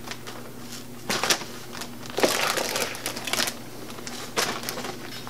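Clear plastic zip-top bag crinkling in several bursts as it is handled and filled with mashed egg-yolk filling, with a few sharp clicks.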